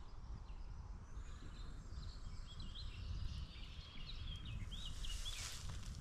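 Wind rumbling on the microphone, with a small songbird singing a run of short chirping notes between about two and five seconds in. A brief rustle comes near the end.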